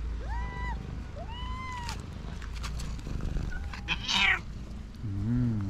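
Calico cat meowing loudly, two short arched meows, then a harsh rasping hiss-like cry about four seconds in and a low wavering growl near the end.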